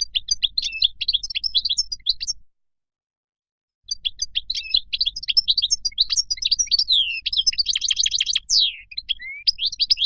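European goldfinch singing its wild-type song: quick twittering chirps and warbles with a buzzy trill and a falling note, in two stretches separated by a pause of about a second and a half.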